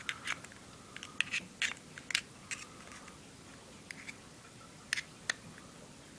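Irregular small clicks and scratches of a pointed tool digging the cotton packing out of a Zippo lighter's metal insert.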